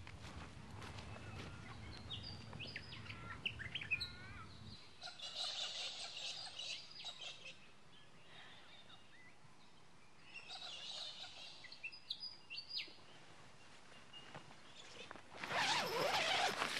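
Birds calling in bush ambience: short whistled calls rising and falling in the first few seconds, then two stretches of raspy chattering. A low hum underneath cuts off about five seconds in, and a louder rough, rushing burst comes near the end.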